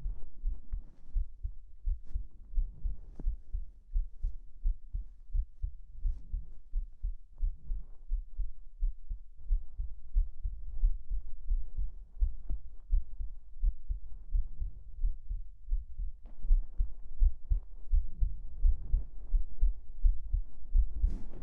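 A human heartbeat picked up by a microphone held against the chest, beating steadily as regular low double thumps. Soft fabric rustling from bedding runs underneath and grows in the later part.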